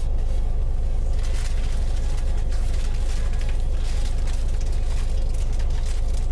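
Steady low rumble of a coach bus cabin on the move: engine and road noise heard from inside among the seats.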